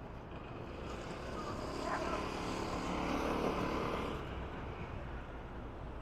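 A vehicle passing by, growing louder over about two seconds and then fading, over a steady background rumble.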